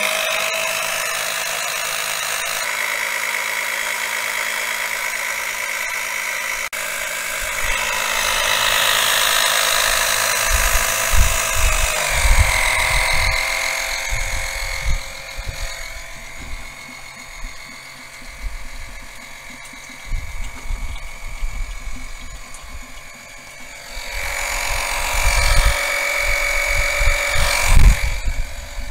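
A 12-volt electric oil extractor pump switches on abruptly and runs with a steady motor whine while it draws engine oil up through the dipstick tube. The pitch rises and then drops about twelve seconds in. Irregular low thumps and rumble run alongside from about ten seconds on.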